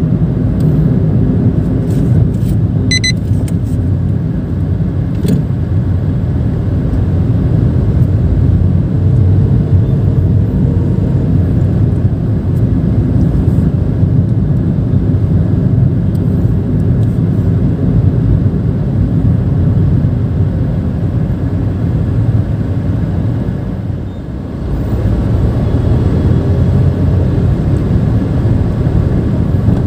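Nissan March hatchback driving, heard from inside the cabin: a steady low rumble of engine and tyre noise. A brief high beep sounds about three seconds in, and the rumble eases for a moment about three-quarters of the way through before building again.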